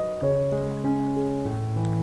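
Background music: soft, slow piano or keyboard chords, notes held and changing about every half second.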